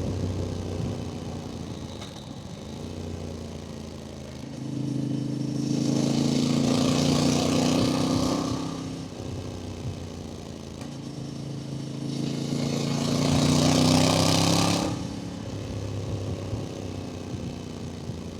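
Voge DS800X Rally's parallel-twin engine through its standard exhaust, accelerating hard twice, about five seconds in and again about twelve seconds in, with a quieter engine note between the two pulls. A rush of wind noise rises with each acceleration.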